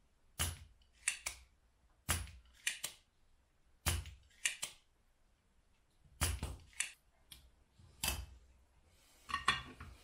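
Spring-loaded desoldering pump (solder sucker) firing repeatedly as it sucks molten solder off circuit-board joints. There are about five sharp snaps with a low thump, and each is followed by one or two lighter clicks.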